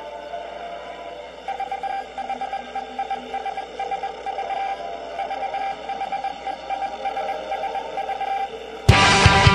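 Soundtrack music: a quiet passage of steady held synth tones, joined about a second and a half in by a pulsing note repeating a few times a second. Near the end, loud rock music starts suddenly.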